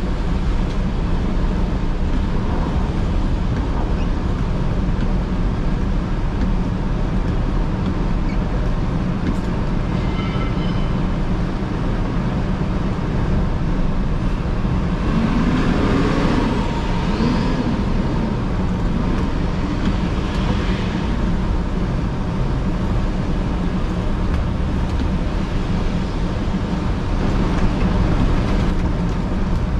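Road and traffic noise on a wet city street, heard from inside a moving car: a steady low rumble of tyres and engines. A brief high tone sounds about a third of the way in, and a louder vehicle passes about halfway through.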